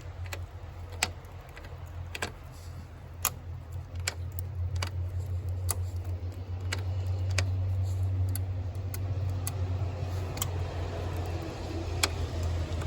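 Scattered light clicks and metallic taps of hand tools and test leads at the bulldozer's wiring, over a steady low hum.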